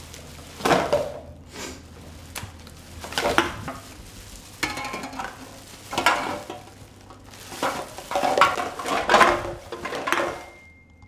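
Thin white plastic bag being handled, rustling and crinkling in irregular bursts about every second. It stops abruptly near the end.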